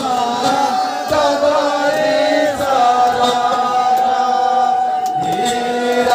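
A man chanting a devotional song into a microphone, the melody moving at first and then holding one long note through the second half.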